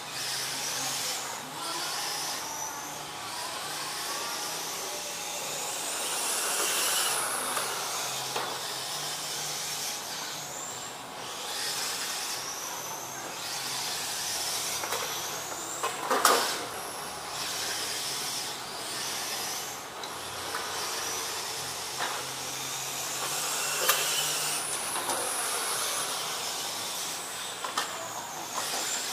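Electric RC touring cars with 13.5T brushless motors racing on a track: a high motor whine that repeatedly rises in pitch as the cars accelerate and drops away as they brake for corners, over steady tyre hiss. A single sharp knock about sixteen seconds in.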